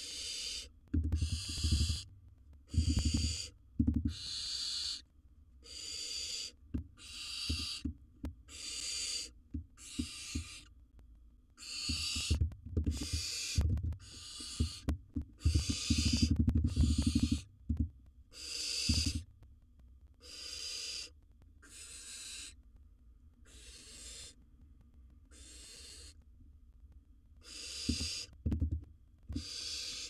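Barn owls giving rasping hiss calls, one about every second, with a short pause in the second half. Low thumps and scuffling of the birds moving in the wooden nest box come in between, loudest about halfway through.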